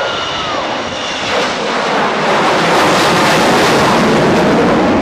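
Aircraft passing low overhead, its engine noise swelling over the first two seconds into a loud, dense rush that then holds.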